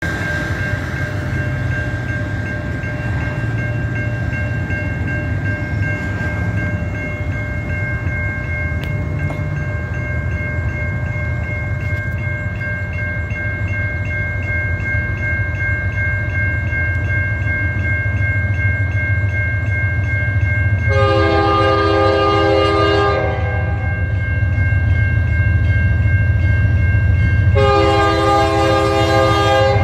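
Approaching diesel locomotive of a coal train, its engine rumbling steadily and growing louder. It sounds two long blasts on its multi-tone air horn, one about two-thirds of the way through and one near the end.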